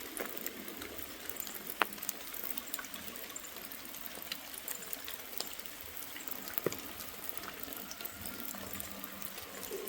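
Fire pit burning: a steady hiss with scattered sharp crackles and pops.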